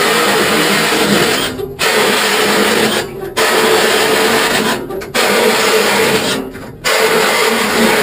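Reciprocating saw cutting through the steel tubing of an IBC tote cage. It runs steadily in stretches of about a second and a half, with four short breaks as it moves from one bar to the next.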